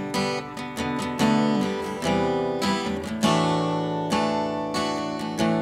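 Taylor steel-string acoustic guitar strummed, chords ringing between strokes, with one chord left to ring for about a second midway through.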